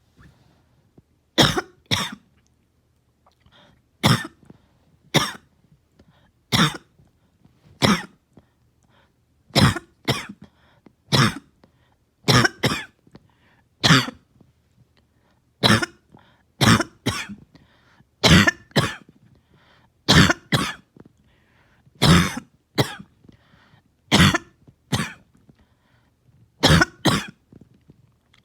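A person in a coughing fit: sharp coughs, often two at a time, repeating every second or two without letting up.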